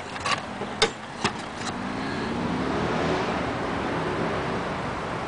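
A road vehicle passing by, its noise swelling to a peak about three seconds in and then easing off. A few sharp clicks in the first two seconds, from handling.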